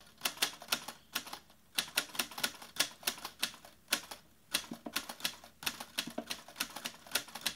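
Typewriter keys clacking in quick, uneven runs of keystrokes, with two brief pauses.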